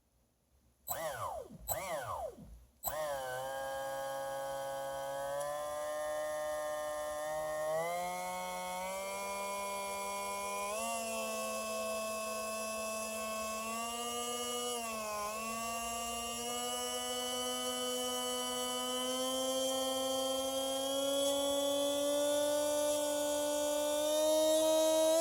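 A 4074-size 2150kv brushless motor on a 6S lipo running on the bench with a steady electric whine. It is blipped up and down twice about a second in, then held running, its pitch stepping up gradually with the throttle, dipping briefly past the middle and climbing again near the end.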